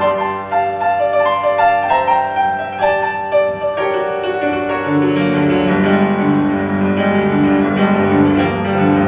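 Live piano music playing a quick run of separate notes, with a lower part of held and repeating notes coming in about four seconds in.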